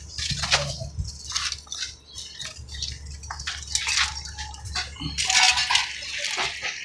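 Irregular scrapes and clinks of hand work with pipe and tools, over a low steady hum.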